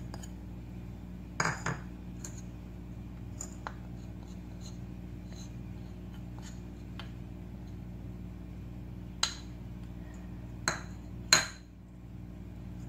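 Kitchen dishes clinking: a few short, sharp clinks of ceramic against a glass mixing bowl, one about a second and a half in and three close together near the end, over a steady low hum.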